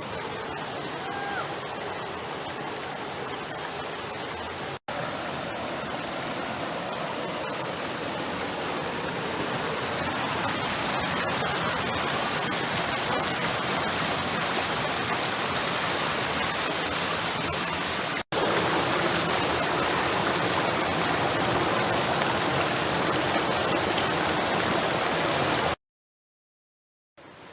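Steady rush of a waterfall, a dense even roar of falling water that grows louder. It is cut into several pieces with brief dropouts and ends with about a second of silence.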